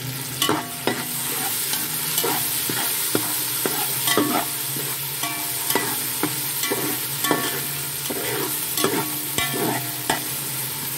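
Sliced onions and ginger-garlic paste sizzling in hot oil in a metal pot, stirred with a slotted metal spoon that scrapes and clinks against the pot about once or twice a second.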